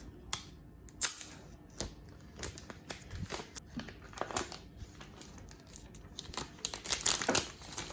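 Plastic shrink-wrap being torn and crinkled off an iPhone box: irregular crackling and rustling, with a louder flurry about seven seconds in.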